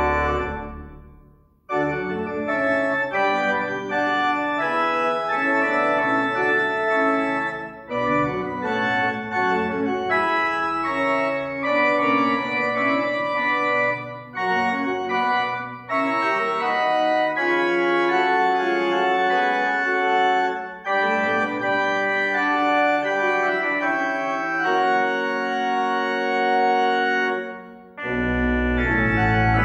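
Organ music: sustained chords moving in slow phrases, with short breaks between them. Deep bass notes come in near the end.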